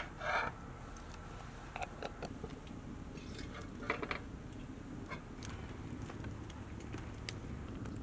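A few short scrapes and clinks of a utensil and pan in the first seconds. Then an open wood fire crackles under a pan, a steady low rumble of flames with scattered sharp pops.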